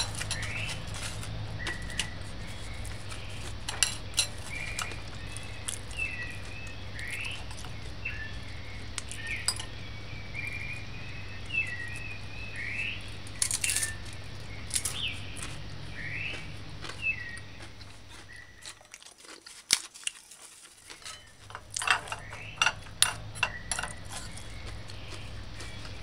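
Metal spoon clicking and scraping against a ceramic bowl while eating, with many short chirps in the background and a steady low hum.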